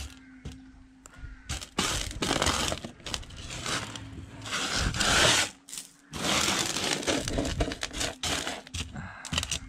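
Washed sapphire gravel being pushed and spread by hand across a metal sorting table, the stones scraping and rattling on the metal in repeated sweeps, the loudest about five seconds in. This is the hand-sorting of a wash for gemstones.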